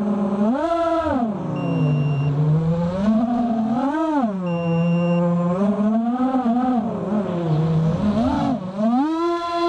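Brushless motors of an FPV racing quadcopter (Cobra 2206 2100 kV spinning HQ 5x4.5 props) whining in flight. The pitch swings sharply up with three throttle punches, about a second in, around four seconds and near the end, and drops back between them.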